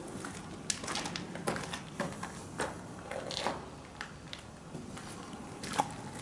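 Footsteps crunching on debris, irregular steps about once or twice a second.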